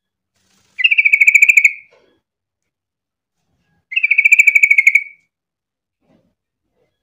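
Yellow-vented bulbul (trucukan) calling: two rapid trills of quickly repeated notes at one steady pitch, each about a second long, the first about a second in and the second three seconds later.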